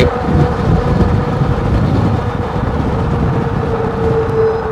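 Wind and road noise on a helmet or handlebar action camera as an Eahora Urban e-bike rides at speed. A steady mid-pitched whine from the e-bike's electric motor runs underneath and grows a little louder near the end.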